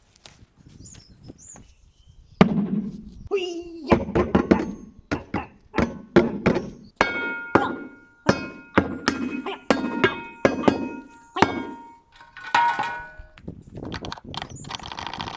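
Cardboard packing and metal parts being handled during an unboxing: a run of irregular knocks and thunks, with ringing metal clinks from about 7 to 11 seconds in.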